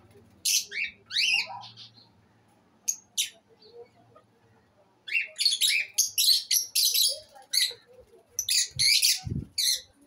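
Lovebirds giving sharp, high-pitched chirping calls in bursts: a few calls in the first two seconds, then a rapid run of calls from about five seconds in. Two short low thumps come near the end.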